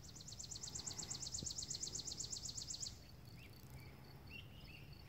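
Faint outdoor wildlife: a high, even trill of about ten pulses a second lasting about three seconds, followed by a few faint high chirps.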